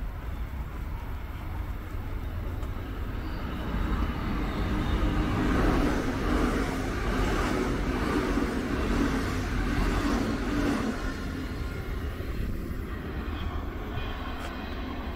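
Queensland Rail suburban train running along the track, heard from on board: a steady low rumble that swells about four seconds in, with a humming tone over it, and eases off again near the end.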